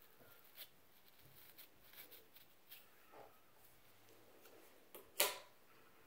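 Faint scratching of a fine-tooth plastic comb scraped along the scalp in short strokes, loosening flakes of scalp build-up. A single sharp click, the loudest sound, comes a little past five seconds in.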